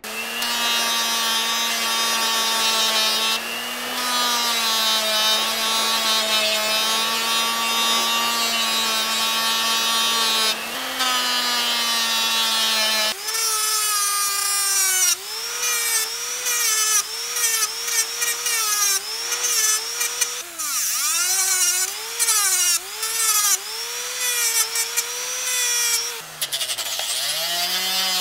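Motor-driven grinding wheel starting up and running with a steady whine. From about halfway in it grinds the steel wrench, throwing sparks, and its pitch dips and recovers over and over as the work is pressed against the wheel.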